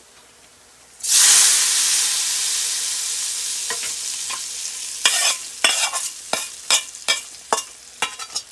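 Hot ghee with Kashmiri red chilli powder poured over a chicken korma as a tempering: a loud sizzle starts suddenly about a second in and slowly dies down. Then comes a quick series of about ten spatula knocks and scrapes against the pans.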